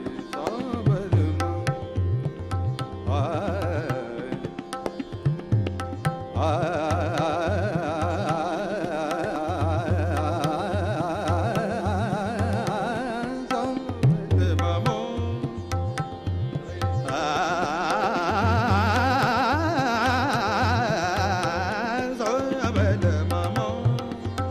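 Hindustani classical vocal performance: male voices singing fast, wavering melismatic runs in two long passages, over a steady tabla rhythm with deep bass-drum strokes, harmonium and a sustained tanpura drone.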